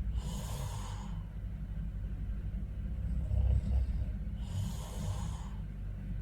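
A sleeping person's heavy breathing and snoring: two long hissing breaths about four seconds apart, with a lower, fainter snore sound just before the second.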